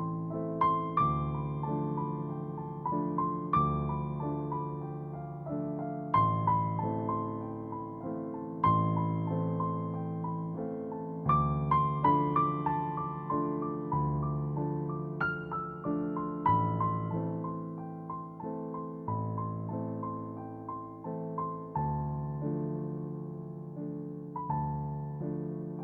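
Soft, slow piano music, notes struck and left to ring.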